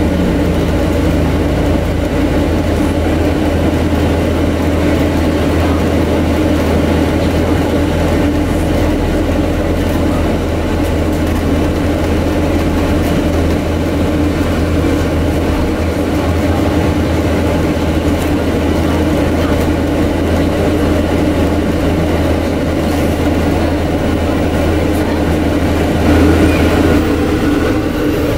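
Cabin sound of a Scania N250UD double-decker bus with a ZF automatic gearbox on the move: a steady drone of the engine under the hum of the air-conditioning unit, which largely covers the engine. The sound swells a little near the end.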